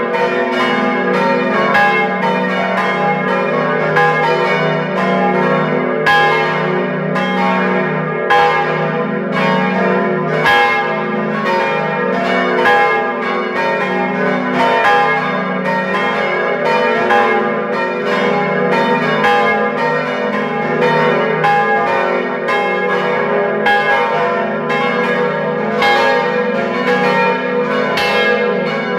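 The five swinging bells of Utrecht's Dom Tower (Agnes minor, Kruisklok, Benignus, Adrianus and Jezus Maria Johannes) ringing together, their clappers striking a few times a second in an irregular, overlapping pattern, each stroke ringing on into the next. Heard close up from inside the bell chamber.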